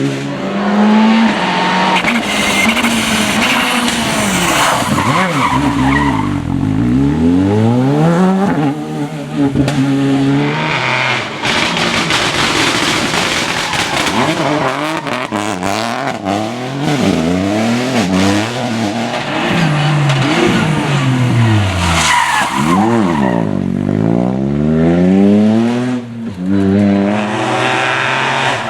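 Rally cars driven hard on a tarmac special stage: engines repeatedly revving up and dropping between gear changes and braking, with tyres squealing and skidding through the turns.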